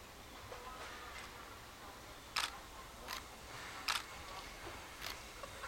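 Four sharp clicks, spaced unevenly about a second apart and starting a little over two seconds in, over a faint steady background.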